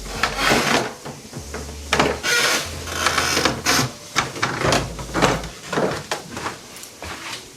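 Newly mounted wooden stair handrail being shaken and knocked by hand to test it, giving a run of irregular wooden knocks and rattles with heavy low thumps.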